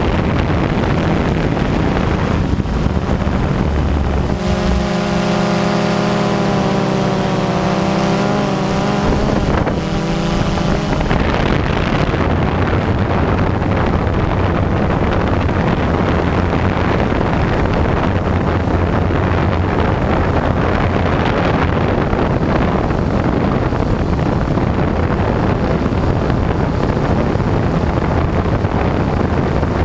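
Camera drone's motors and propellers running steadily, heard through the onboard microphone with wind rushing across it; a pitched whine stands out from about four to eleven seconds in.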